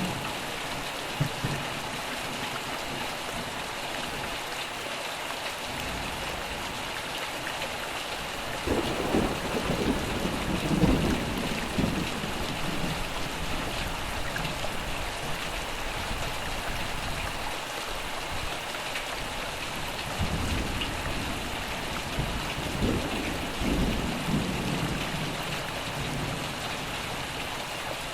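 Steady rain falling, with rolling thunder rumbling twice: once about a third of the way in and again past the two-thirds mark.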